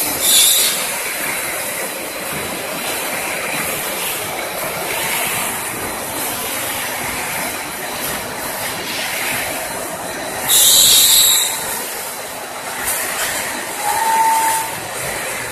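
Snack-chip production line machinery running, a steady mechanical clatter and hiss. A loud hissing burst comes right at the start and a longer one, about a second, comes roughly ten and a half seconds in, with a brief high squeal near the end.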